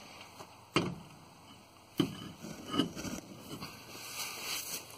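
A few sharp knocks or clanks over faint background noise: two loud ones, one under a second in and one about a second later, then a smaller knock shortly after.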